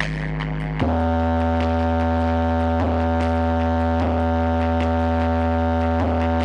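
Electronic DJ music played through a big sound system during a sound check: a beat with ticking hi-hats gives way, just under a second in, to a long held deep bass chord with the drums dropped out, re-struck a few times.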